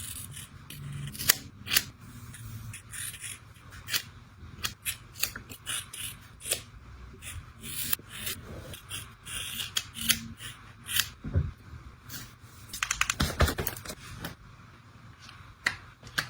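Hair-cutting scissors snipping through wig hair while cutting a bob: irregular sharp clicking as the blades close, with a quick run of snips near the end.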